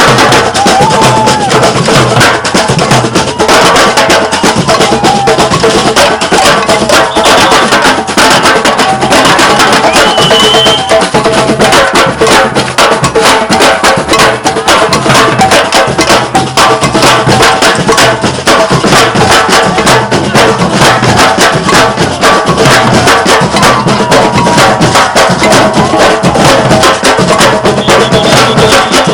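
Batucada samba percussion ensemble playing loudly: dense, driving drum strikes over a steady pulse of low drum beats.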